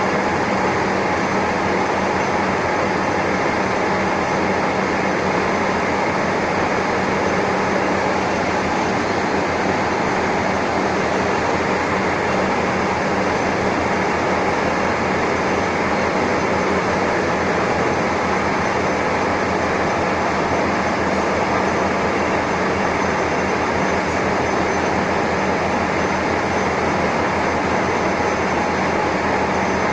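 Metal-turning lathe running steadily, turning a shaft while a bronze bushing is lapped onto it. A continuous machine noise with a steady low hum that does not change.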